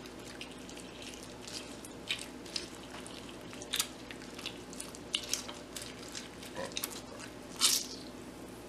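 Lime half being juiced with a handheld citrus reamer: soft wet squishing and dripping of juice, with scattered light clicks and taps. Two louder taps come a little under four seconds in and near the end.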